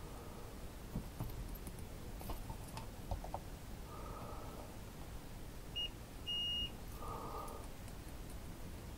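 Digital multimeter in continuity mode beeping as its test probes are held to the soldering station's iron connector and cord: a short high beep about six seconds in, then a longer one of about half a second. Faint clicks and rustles of the probe leads and cables come and go around it.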